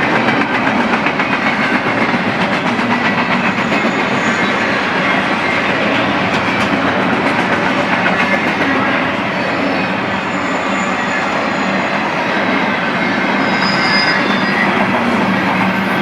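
Freight train cars rolling past, steel wheels clicking rapidly over the rail joints in a steady rumble, with a few brief faint squeals of wheels on rail.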